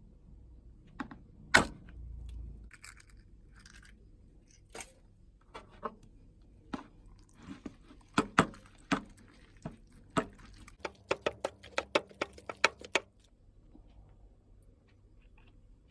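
Kitchen utensils knocking and clattering during food preparation: scattered sharp knocks, then a quick run of about a dozen taps near the end before it goes still.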